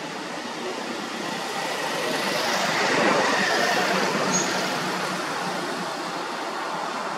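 A road vehicle passing by, its noise swelling to a peak about three seconds in and then slowly fading, over a steady hiss of background noise.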